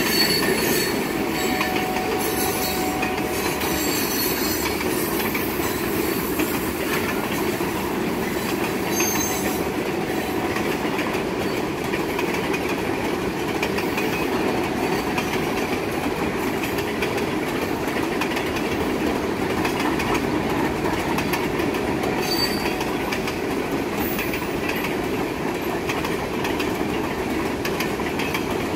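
Freight cars rolling past steadily, with a continuous rumble of steel wheels on rail and a faint wheel squeal now and then.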